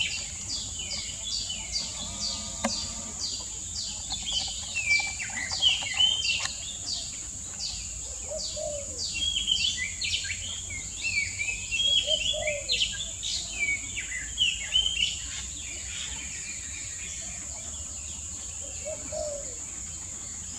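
Oriental magpie-robins calling: a quick run of short, downward-sweeping whistled notes that thins out about three-quarters of the way through. A steady high-pitched insect drone runs underneath.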